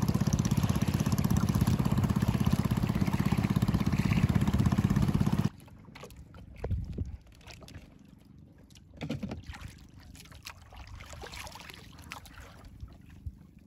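Engine of a motorized outrigger bangka running steadily with a fast, even firing rhythm, cutting off suddenly about five seconds in. Then faint water lapping with a couple of small splashes.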